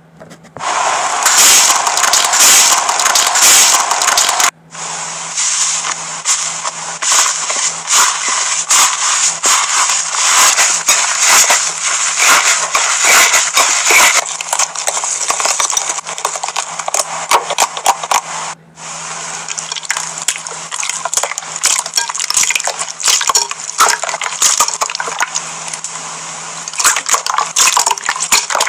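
Slime being pressed, kneaded and scraped by hand in a bowl: wet squishing with dense crackling and clicking. It breaks off briefly twice, once a few seconds in and once past the middle.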